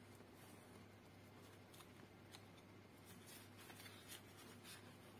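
Faint crinkling and rustling of paper banknotes being handled and slid into a clear plastic zipper envelope, busiest in the second half, over a steady low hum.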